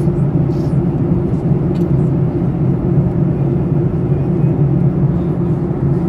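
Airliner cabin noise in flight: a steady, even drone of the turbofan engines and the air rushing past the fuselage, heaviest in a low hum.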